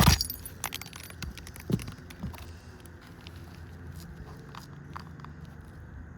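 A sharp knock at the start, then scattered light clicks and crackles: asphalt shingles and nails being handled during a roof shingle repair.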